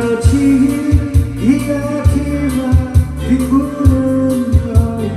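A man sings a Korean pop song into a microphone over a backing track with a steady drum beat and bass. His voice holds long, sliding notes.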